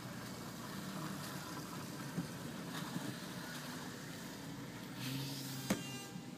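Low, steady hum of a car engine idling and creeping forward in heavy traffic, heard from inside the cabin, with a single sharp click near the end.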